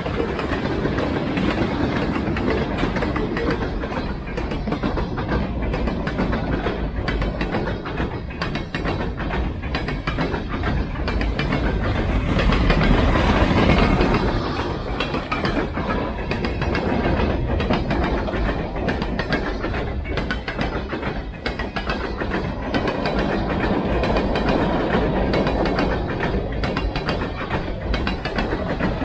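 Freight cars of an Ontario Northland train rolling past: steel wheels clicking over rail joints, with a continuous rumble and rattle from tank cars and gondolas. It grows louder for a couple of seconds about halfway through.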